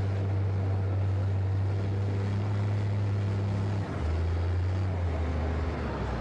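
Front-end loader's engine running under load as the bucket digs into turf, a steady low drone that steps down in pitch about four seconds in.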